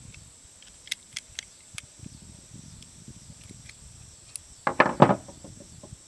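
Parts of a Bushmaster ACR rifle being handled during disassembly: a few light sharp clicks, then about three-quarters of the way through, a louder clatter of several quick knocks as parts are worked or set down.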